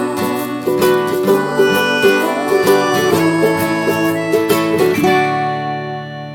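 Plucked string music of quick picked notes. About five seconds in it ends on a held chord that rings on and fades out.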